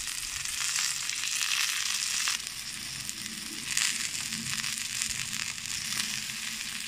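Wagyu picanha sizzling with crackles on a hot griddle, its fat cap held against the plate to render and crisp. The sizzle eases slightly after about two seconds.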